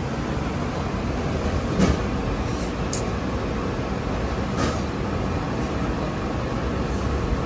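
Steady low rumble of a moving vehicle, with a few short clicks and rattles.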